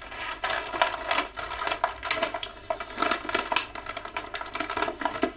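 Plastic toy packaging and small plastic accessory pieces being handled, making a run of quick, irregular clicks and crinkles.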